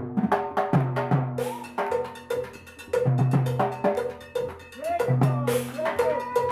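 Upbeat percussion music: a cowbell keeps a steady, quick pattern with timbale and drum strokes, over sustained low notes.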